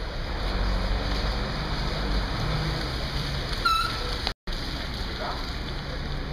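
Steady hubbub of a busy station concourse, with faint indistinct voices. About halfway through comes one short high squeak, and soon after, the sound drops out for a moment.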